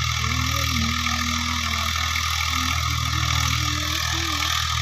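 An old tractor engine running steadily at an even speed.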